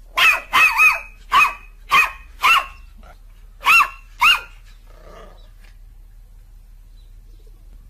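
A dog barking eight times in short, sharp barks, in uneven groups over about four seconds, then falling silent.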